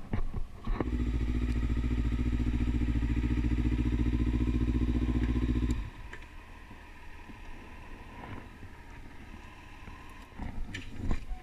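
Sport motorcycle engine running steadily at low revs, then cutting off suddenly about six seconds in, followed by a few faint clicks.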